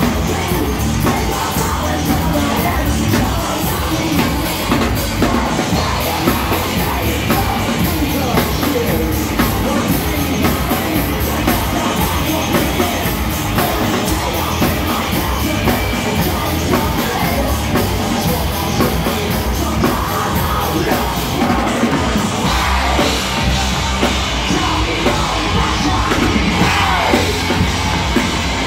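Live heavy metal band playing loud: distorted electric guitar and a pounding drum kit under yelled vocals. The cymbal wash thins out about three-quarters of the way through.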